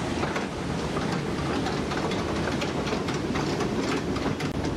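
Log flume ride in motion: a steady rush of noise with many rapid, irregular clacks and rattles from the log boat and its track.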